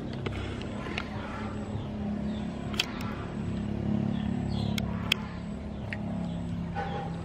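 Metal spoon clinking on a ceramic plate during eating: two pairs of sharp clinks, the second pair about two seconds after the first, over a steady low hum.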